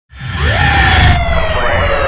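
Siren sound effect in a logo intro sting: a wail that rises quickly and then falls slowly, over a deep rumble. A high hiss cuts off about a second in.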